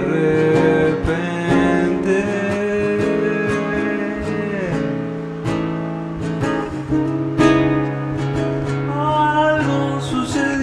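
Man singing a song while accompanying himself on a capoed classical guitar. The guitar chords ring steadily under a sustained, gliding vocal line.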